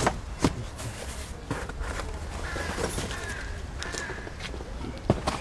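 Knocks and bumps of cardboard boxes being handled over a metal shopping cart and loaded into a car's trunk, over a low wind rumble. Three short bird calls sound faintly in the middle.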